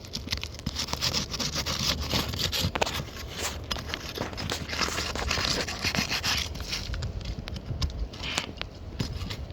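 Scraping and clicking on asphalt roof shingles as a wind-damaged shingle is worked loose by hand and tool. There are rough scraping spells with many sharp clicks between them.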